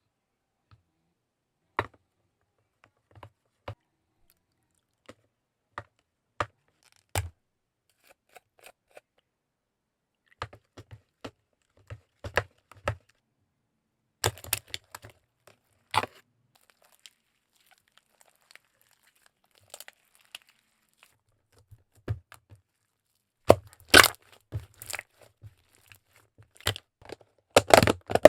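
Scattered sharp clicks, taps and crinkles of plastic containers and packaging being handled while slime is made, with dead silence between them. The sounds come more thickly near the end.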